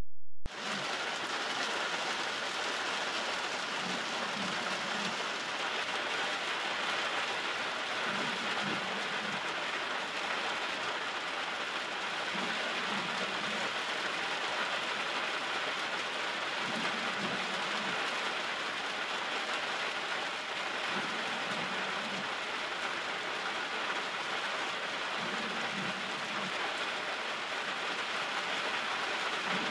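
Steady rain falling, with a faint low sound coming back about every four seconds.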